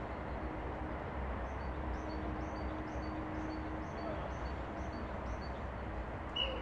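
Steady outdoor background rumble over an open sports pitch, with faint high chirps repeating about twice a second through the middle. Near the end, a short, sharp blast on a coach's whistle.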